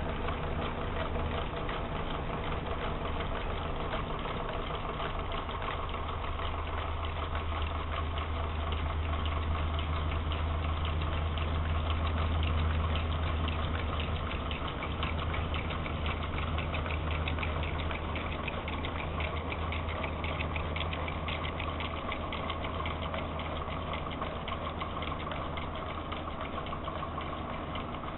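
Bathroom exhaust fan running steadily with a low hum as it drives a wooden whirligig, whose moving parts keep up a rapid, light clicking.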